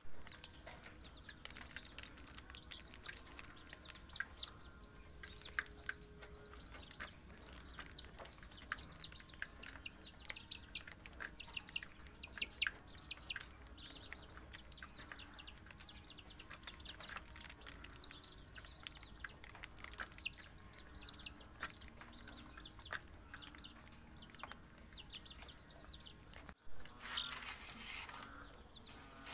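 A group of serama, rosecomb and Siamese bantam chicks peeping, many short falling chirps in quick succession, over a steady high whine. There is a brief burst of noise near the end.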